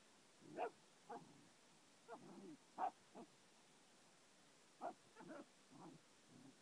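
German Pinscher making a dozen or so short play yips and grunts at irregular intervals while worrying a roe deer hoof.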